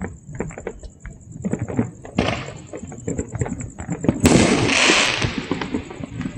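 Fireworks and firecrackers going off across the city, a rapid, irregular scatter of pops and bangs. A louder burst of hiss and crackle comes about four seconds in and lasts about a second.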